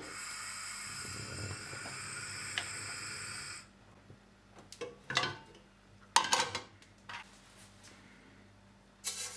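Kitchen work sounds: a steady rushing hiss that stops about three and a half seconds in, then a few clattering knocks of dishes or utensils, the loudest about six seconds in.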